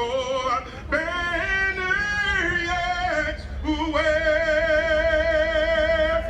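A solo voice singing slow, drawn-out notes with vibrato, ending on a long held note that begins about four seconds in, over a steady low rumble.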